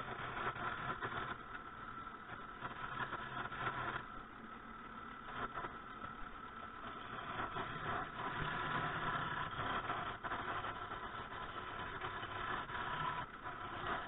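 Wood lathe running with a steady motor whine while a hand-held turning tool cuts along a spinning ash spindle, the rough scraping hiss of the tool shaving the wood varying as the cut goes on.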